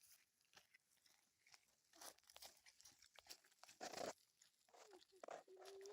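Faint crunching and rustling of bell pepper plants as peppers are picked, with scattered small snaps and a louder rustle about four seconds in.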